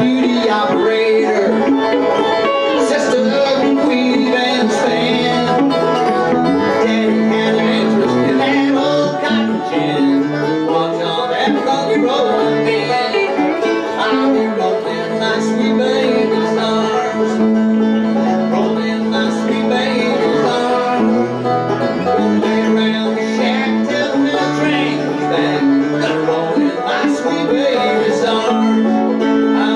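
Live bluegrass music: a five-string banjo picking rolls together with an amplified electric guitar, playing steadily.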